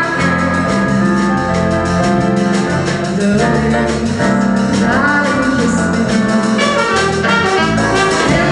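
Live jazz band of drums, bass guitar, keyboard, saxophone and trumpet playing with a steady beat, a woman singing the melody into a microphone.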